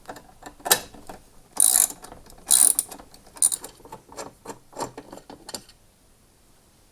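Ratchet socket wrench clicking in several short runs as it undoes the bolt that holds a lawnmower blade, with the loudest runs a couple of seconds in.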